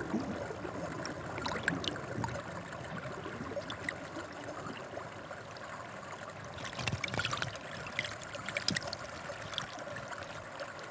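Hot-spring water trickling and lapping in a rock pool, with small splashes and drips that get busier about seven to nine seconds in.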